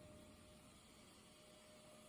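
Near silence: the last of a Saiga .223 rifle shot's echo dies away at the very start, leaving faint hiss and a thin steady tone.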